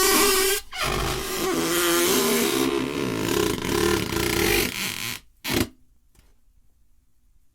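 Rubber balloon squeaking from friction as it is rubbed. A short pitched squeak is followed by a longer rough, grating squeak of about four seconds, and a brief squeak a little after five seconds in.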